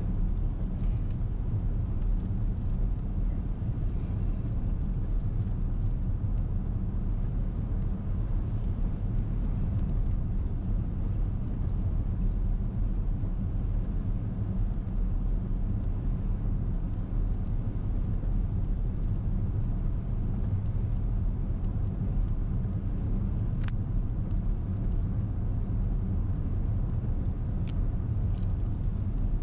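Steady low road and engine noise of a car driving on a wet road, heard from inside the cabin, with a couple of faint ticks near the end.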